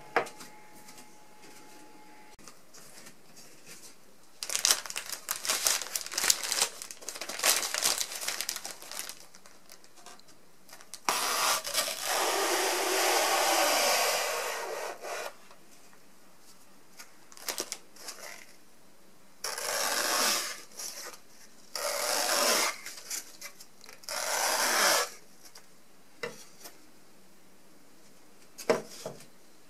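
Kitchen knife slicing through a melamine foam sponge block on a wooden cutting board: a run of short scratchy strokes, then one long cut about four seconds long, then three shorter cuts. A light knock near the end as the knife is laid on the board.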